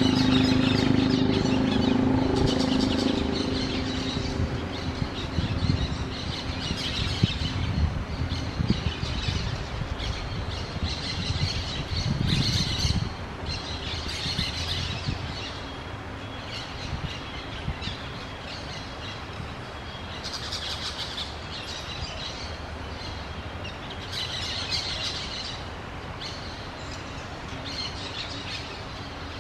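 A flock of orange-chinned parakeets chattering in repeated bursts of high, shrill chirps. A low hum and some thuds are heard under them through about the first dozen seconds.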